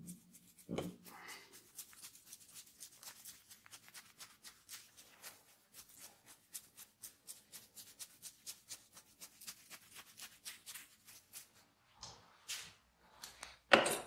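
Fingertips and nails scratching through curly hair against the scalp in quick, repeated scratchy strokes, several a second. A louder rustle comes about a second in, and two more near the end.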